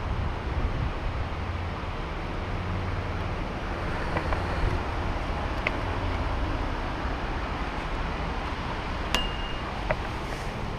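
Steady wind rumble on the microphone with a few faint clicks, and one sharper click with a short ring about nine seconds in.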